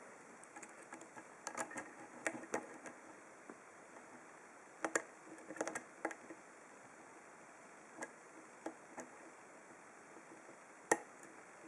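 Faint, scattered clicks and ticks from a deep hook pick and tension bar working the pins of a brass 5-pin Corbin padlock, with the sharpest click near the end.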